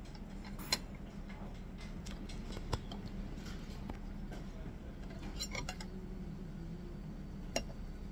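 Metal fork and knife clinking and scraping on a ceramic plate while cutting food, with a few sharp clinks spread through. Under it runs a steady low hum.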